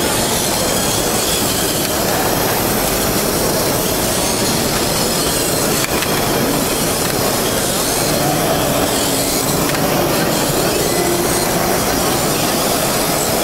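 Steady din of a busy trade-fair hall, mixed with small Kyosho Mini-Z electric RC cars running laps on a tabletop track.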